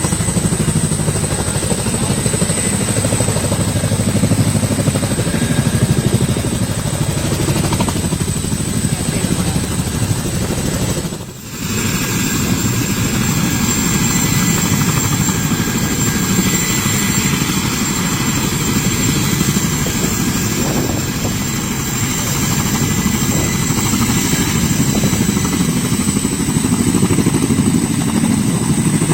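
Boeing CH-47 Chinook tandem-rotor helicopter in flight: steady rotor beat and engine noise with a thin high whine, dipping briefly about eleven seconds in.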